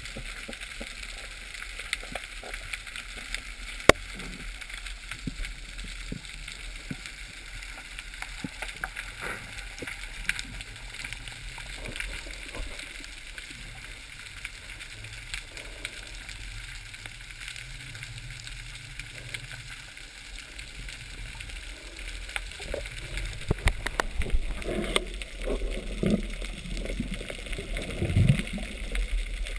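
Underwater sound picked up through a camera's waterproof housing: a steady hiss with scattered crackling clicks, one sharper click about four seconds in. In the last several seconds louder, irregular water noise of the diver moving joins in, with a low sweeping sound near the end.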